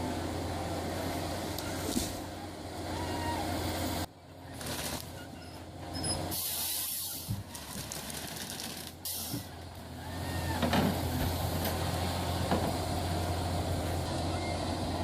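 Diesel engine of a logging machine running steadily, with hissing over the engine hum. The sound drops away abruptly about four seconds in and comes back fuller about ten seconds in.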